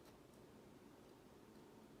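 Near silence: faint room tone with a couple of soft ticks early on.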